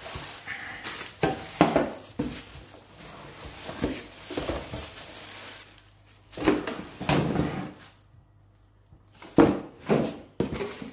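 Plastic bag wrapping rustling and crinkling as wrapped hedge-trimmer parts are lifted out of a cardboard box, with knocks and bumps as the parts and box are handled. The sounds come in irregular bursts, with a short lull about eight seconds in.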